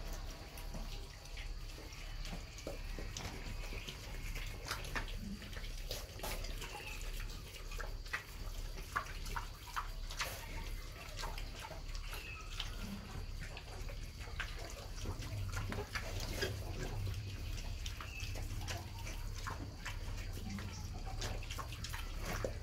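Black sow and piglets snuffling and nosing about on a wet concrete pen floor, making scattered wet clicks and smacks, over a steady low hum.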